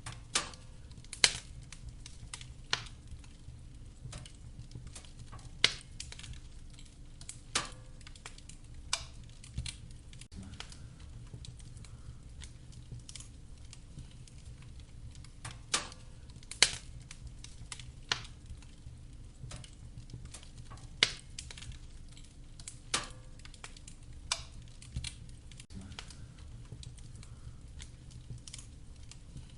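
Wood fire crackling: sharp, irregular pops and snaps, a few every couple of seconds, over a low steady rumble.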